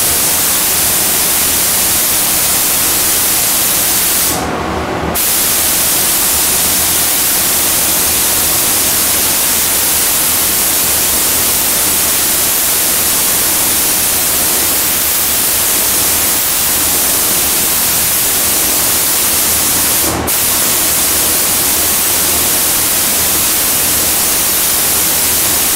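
Gravity-feed compressed-air paint spray gun hissing steadily as it sprays the car body, cutting off for about a second about four seconds in and again very briefly about twenty seconds in as the trigger is let go.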